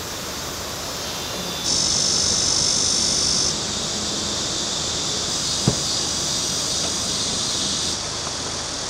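A steady high-pitched chorus of summer insects, jumping in level a few times. A single short click a little past the middle.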